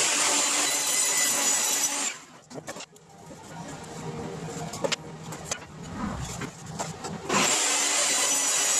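Benchtop table saw, its blade tilted to 30 degrees, ripping a bevel along a narrow strip of wood fed with a push stick. The first loud cut lasts about two seconds and then stops. After quieter handling sounds, the saw runs loud again from about seven seconds in for the second bevel cut.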